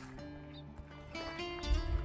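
Instrumental background music with held notes that change in steps, and a low thump near the end.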